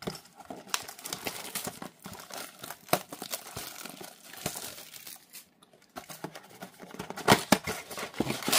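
An Upper Deck Marvel Platinum blaster box of trading cards being opened by hand: crinkling of its wrapping and the cardboard tearing and flexing, a run of small crackles with a short pause a little past halfway and louder tears near the end.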